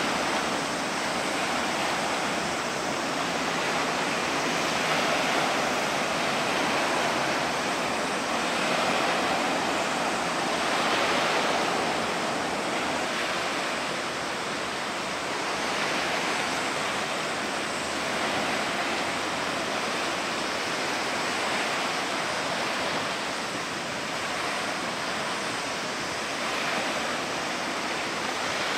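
Steady rushing of sea water, swelling and easing every few seconds.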